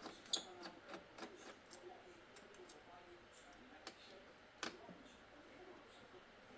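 Faint, scattered small clicks and taps, about seven at uneven intervals, the loudest about four and a half seconds in: small parts and tools being handled during laptop disassembly.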